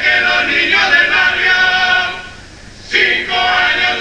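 Uruguayan murga chorus of men's voices singing held notes together, breaking off briefly about two seconds in before starting the next phrase.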